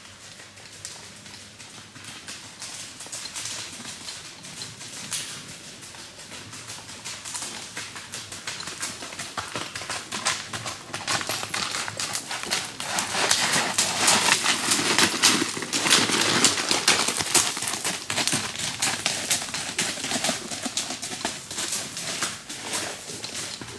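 A mule's hooves walking in a flat-foot walk through dry leaves on a woodland trail: a steady run of crunching, thudding steps. The steps grow louder as the mule comes close and passes about halfway through, then fade as it moves away.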